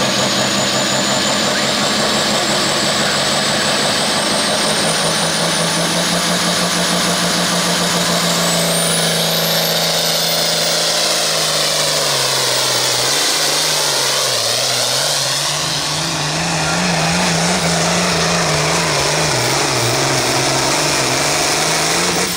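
International 1066 pulling tractor's diesel engine running flat out under load while dragging a weight-transfer sled. The note holds steady for about twelve seconds, then its pitch dips and wavers up and down as the sled's load builds. A faint high whine climbs slowly in pitch over the first eight seconds or so.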